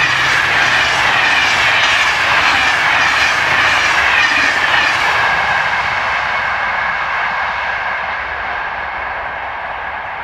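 An SNCF BB 26000 electric locomotive hauling Corail Intercités coaches passes at speed: a sudden loud rush as the locomotive goes by, then the rhythmic clatter of the coaches' wheels over the rails, slowly fading as the train moves away.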